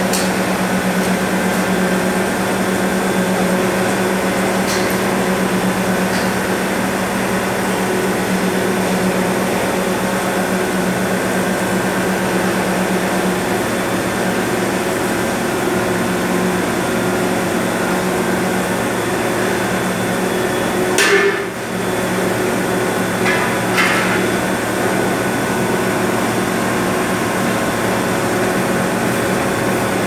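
Brass-melting induction furnace running with a steady, loud hum made of several constant tones. There is a brief louder knock about two-thirds of the way through, then two faint knocks.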